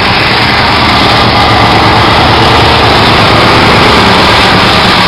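Racing lawn mower's small engine running loud and steady at close range.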